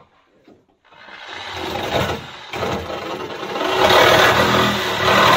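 Corded Craftsman reciprocating saw cutting through the rusted sheet-metal trunk floor. It starts about a second in and grows louder, a steady motor whine under the noise of the blade chewing the metal, with a brief dip about two and a half seconds in.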